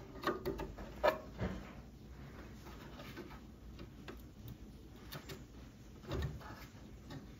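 Clicks and taps of a SO-DIMM RAM stick being angled into its slot and pressed down into place: a few sharp clicks in the first second and a half, the loudest about a second in, and a duller knock about six seconds in.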